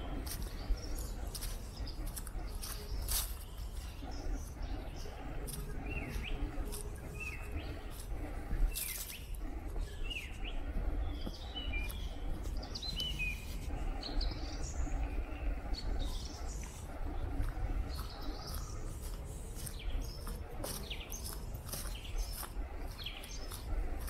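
Small songbirds chirping and calling in bare woodland, short high chirps coming thickest in the middle stretch. Underneath are frequent sharp crunching clicks of footsteps on the leaf-covered path and a steady low rumble.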